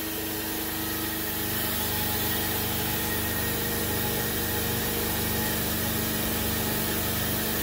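Repco Programatic cylinder boring machine running steadily, its boring bar cutting a cylinder bore in an RB30 Nissan engine block: an even machine hum with several steady tones, a little louder after about a second.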